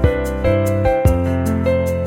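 Background music: a soft instrumental track with a steady beat and sustained notes.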